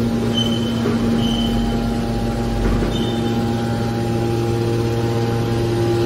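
Hydraulic scrap metal baler's power unit running: electric motors driving the hydraulic pumps make a steady hum with several constant pitches over a low rumble. A few brief high-pitched chirps come in the first half.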